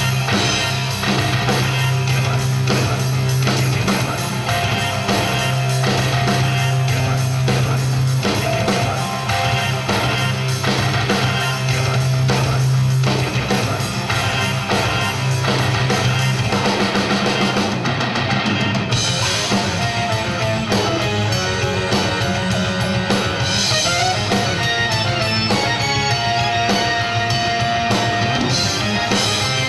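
Live rock band playing: a drum kit and an electric guitar, with a sustained low note under the first half and a change in the arrangement about 19 seconds in.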